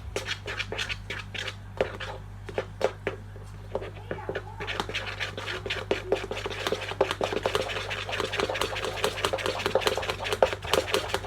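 A spoon clicking and scraping against a bowl while stirring a slime mixture, with irregular taps at first and denser, continuous scraping from about halfway through.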